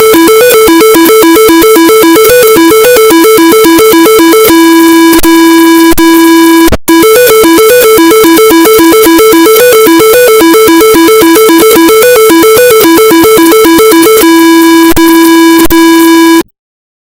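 Synthesized emergency alert alarm for a tornado warning, loud and buzzy: two tones alternate rapidly, switching twice to a single held lower tone, with a brief break about seven seconds in. It cuts off suddenly near the end.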